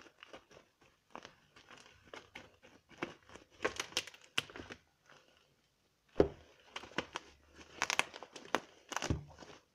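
Scissors cutting into bubble-wrap packaging, the plastic crinkling and crackling in irregular bursts, with a short pause about five seconds in.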